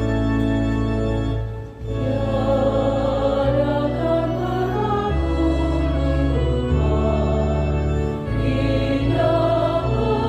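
Church choir singing with instrumental accompaniment: held chords over a steady bass line. The music dips briefly a little under two seconds in.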